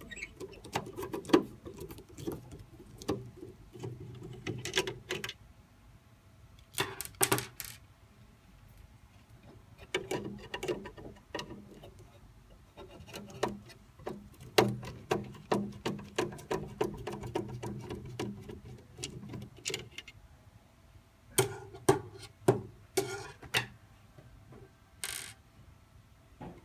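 Screws being removed from an LED TV's backlight board. There are repeated sharp clicks and clatter of the screwdriver and small metal parts, and stretches of a steady low whirring between them.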